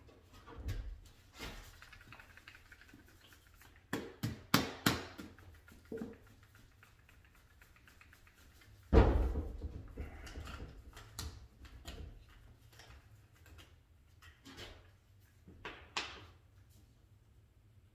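A plastic jug of paint stripper handled with gloved hands: scattered clicks and knocks of the plastic, a quick run of knocks about four to five seconds in, and one heavy thump about nine seconds in, the loudest sound, as the jug is set down on the wooden table. After that come light clicks as its cap is worked open.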